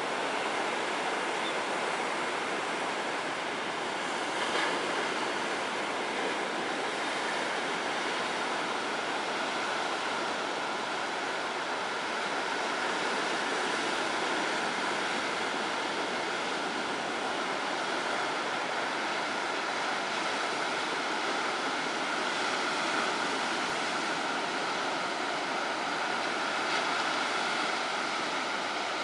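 Rough sea surf breaking in a spring storm, mixed with strong wind on the microphone: a steady rushing noise.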